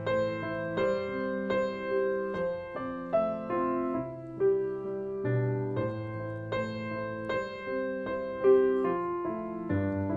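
Background piano music: notes struck about every half second over held lower chords.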